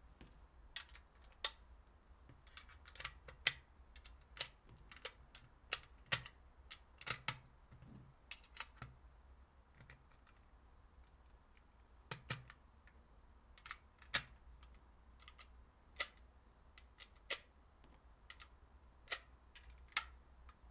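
7.62×39 mm cartridges being pressed one at a time into an AKM magazine, each round going in with a sharp metallic click. The clicks come irregularly, sometimes two close together, with a lull about halfway through.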